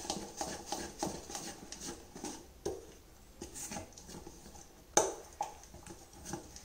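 A steel spoon stirring thick ragi and urad dal batter in a stainless steel pot: repeated scraping and clinking of metal against the pot a few times a second as the lumps are worked out, with one sharper knock about five seconds in.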